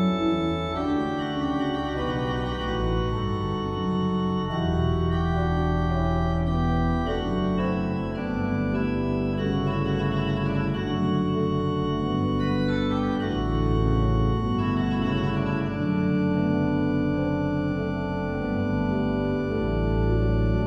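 Church pipe organ playing a classical piece: several held lines moving over a low pedal bass, with deep pedal notes sounding loudest at a few points.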